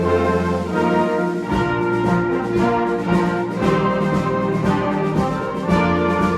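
Concert band playing a Christmas medley of holiday tunes and carols, with brass (horns and trombones) carrying sustained chords over low notes that shift every second or so.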